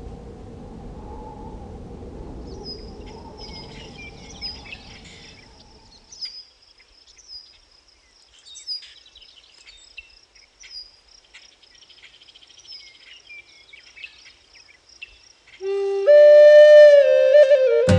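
A low rumbling noise fades out about six seconds in. A bird chirps over and over with a short high call. Near the end a Native American flute comes in loudly, holding a low note and then a higher, wavering one.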